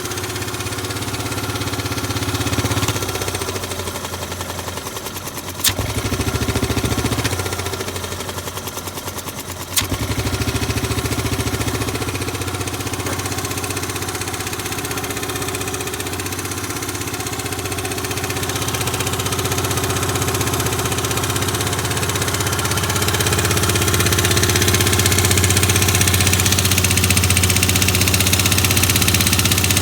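Yamaha Grand Majesty SG15 scooter engine running steadily at idle with an abnormal noise that came on suddenly at 30,000 km; the owner hopes it is an exhaust leak at the AIS pipe but fears it comes from the crank or cylinder head. Two sharp clicks come about 6 and 10 seconds in, and the engine grows louder over the second half.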